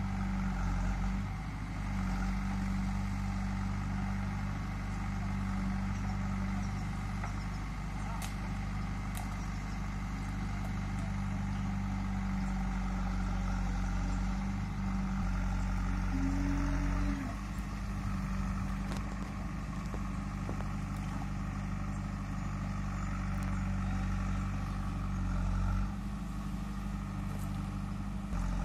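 Backhoe loader's diesel engine running steadily as the machine works, with a brief rise in pitch about halfway through before it settles back.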